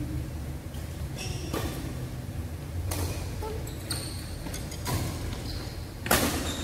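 Badminton rally in a large hall: about five sharp racket strokes on the shuttlecock, roughly a second or so apart, the hardest one near the end. Brief shoe squeaks on the court floor come between the strokes, over a steady low hum.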